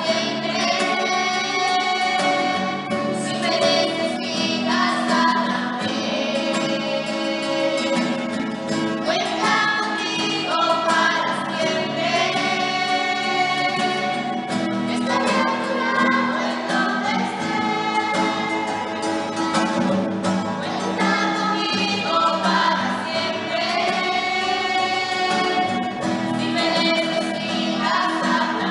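A group of women and girls singing together, accompanied by an acoustic guitar.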